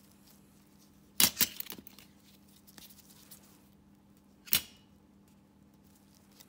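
A thin metal pedicure pick working at the edge of a toenail, giving a quick run of sharp clicks and crackles about a second in and one more sharp click in the middle, over a faint steady hum.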